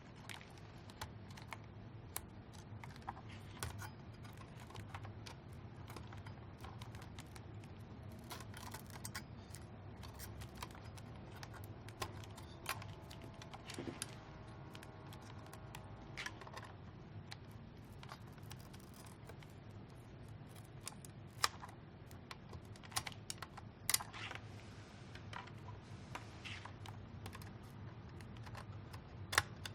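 Irregular small clicks and taps of plastic plugs, cable connectors and small parts being handled and pulled apart inside a ventilator, with a few sharper clicks near the end, over a low steady hum.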